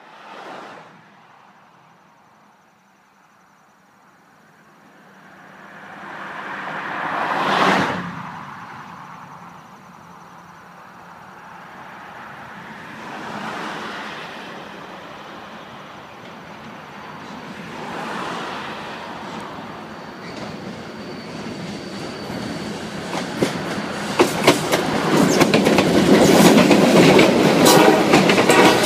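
Freight train passing close by. The noise builds over the second half as the train nears. From about two-thirds of the way in, the tank car wheels click and clatter over the rail joints, growing louder toward the end. Before this, a few whooshing swells of noise rise and fall, the loudest about a quarter of the way in.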